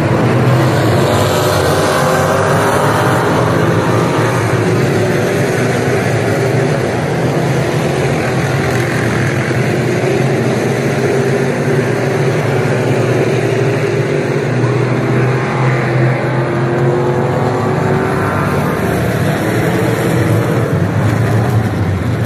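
Street stock race cars running at speed on a dirt oval, their engine note rising and falling as they pass.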